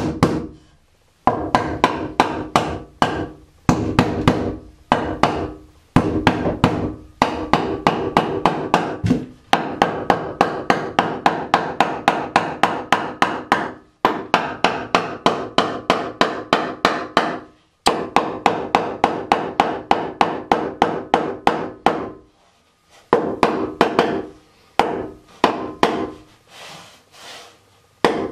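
A hammer striking a 2x4 block in wood wall framing, in quick runs of about four blows a second with short pauses between runs. The blows thin out to a few scattered ones near the end.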